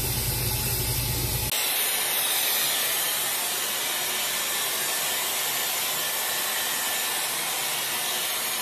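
Hot-air round brush hair styler blowing a steady airflow hiss. About a second and a half in, a deep hum underneath cuts off and the hiss turns brighter.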